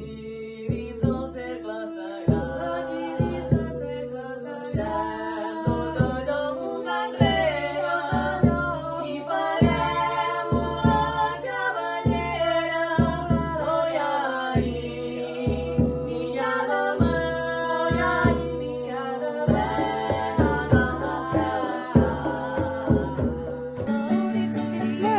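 Music: a song with singing over a steady beat of low drum hits, about two a second.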